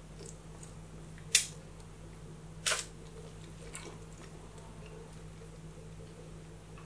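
Two sharp clicks about a second and a half apart, then a faint tick, over a steady low hum, as toppings are handled on a pizza in a metal baking tray.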